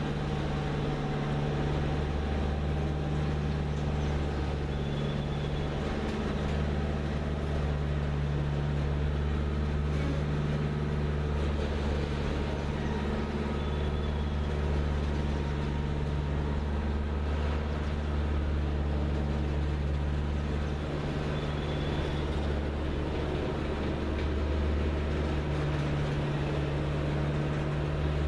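Heavy freight train rolling slowly past, the steady rumble of its cars over the rails under a low, even drone from its diesel locomotives working. Three faint, brief high squeals come at intervals.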